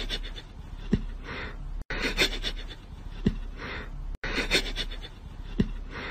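A cat sniffing at a sock-covered foot: quick breathy sniffs with small clicks and one short sharp sound falling in pitch, the same couple of seconds of sniffing repeated three times.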